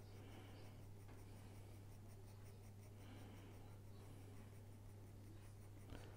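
Graphite pencil shading on drawing paper: faint scratchy strokes that come and go, over a steady low electrical hum. A light tap near the end.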